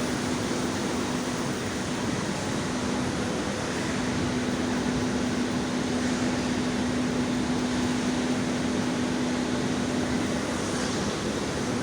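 Strong wind blowing over the microphone as a steady rushing noise, with a steady low machine hum underneath.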